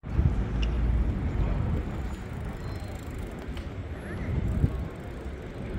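Outdoor city ambience: a low, uneven rumble, loudest in the first second or so, with faint voices of people passing.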